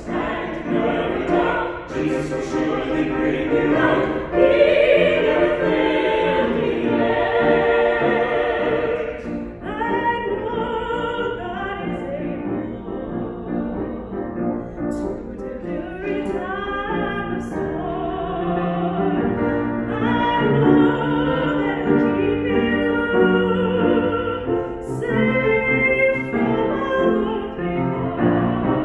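A vocal quartet of two women and two men singing in harmony with classical vibrato, accompanied by piano.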